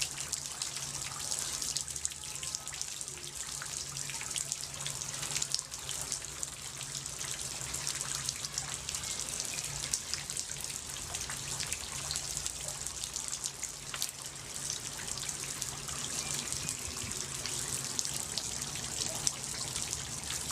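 Water running steadily, trickling and splashing with a dense patter of fine drips.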